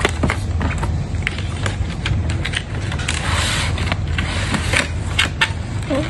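Hands unboxing a smart watch: a cardboard box and its plastic tray and wrapping handled, with scattered clicks and rustles over a steady low hum.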